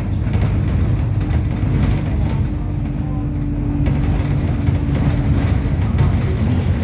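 Inside an Alexander Dennis Enviro200 single-deck bus under way: the diesel engine and drivetrain drone low and steady with a held whine that fades out near the end, and loose fittings in the cabin rattle now and then.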